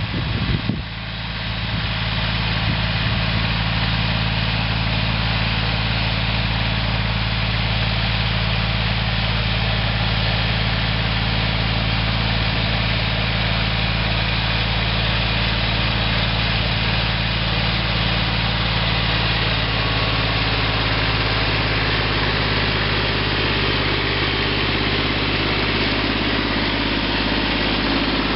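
Yanmar YM169 compact diesel tractor engine running steadily at working speed as it pulls a digger through the soil to lift potatoes. A few knocks come in the first second.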